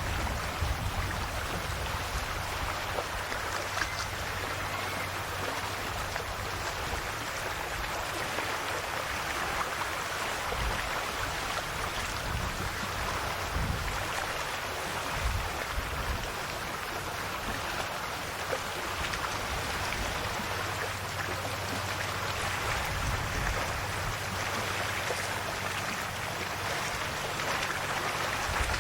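Calm sea: small waves lapping and washing on the shore, a steady wash of water.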